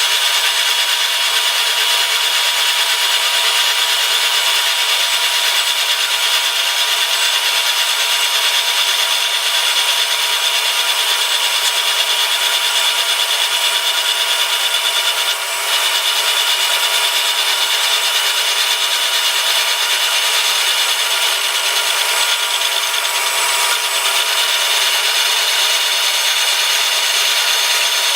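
Milling machine cutting the steel vise base: a steady cutting noise that holds level throughout, broken only by a brief dip about fifteen seconds in.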